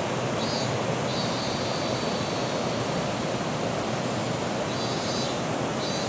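Steady, even rushing noise with no speech and no change in level.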